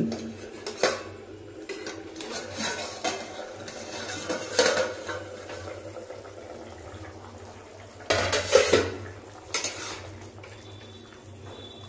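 Metal clinks and clatter as a steel plate used as a lid is handled on a steel kadhai and lifted off, then a spatula scrapes and stirs the curry in the pan. The loudest clatter comes about eight seconds in, over a low steady hum.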